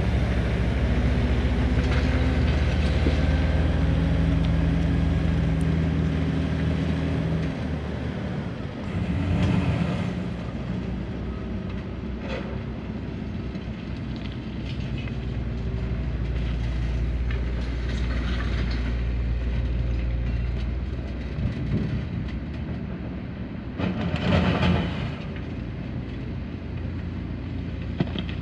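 Hyundai 235 crawler excavator's diesel engine running under working load, its note shifting as the hydraulics work, with several short bursts of noise, the loudest about 24 seconds in.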